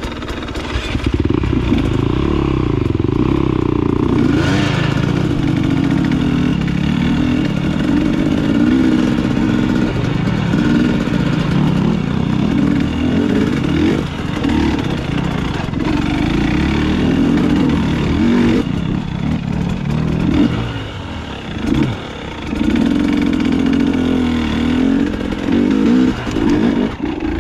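Dirt bike engine running as it rides over rough trail, the revs rising and falling with the throttle, with a brief drop in revs about three quarters of the way through.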